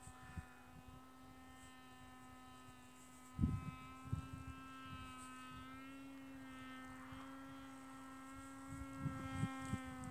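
Electric motor and propeller of a small Foxy Slim VTOL drone in flight, a faint steady buzzing hum that wavers slightly in pitch. Wind buffets the microphone about three and a half seconds in and again near the end.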